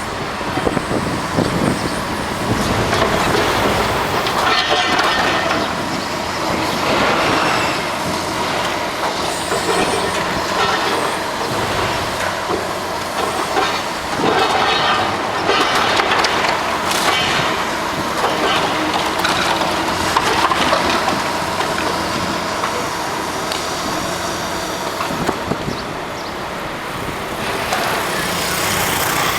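Heavy demolition machinery at work on a building, a continuous dense din of irregular clanking and scraping.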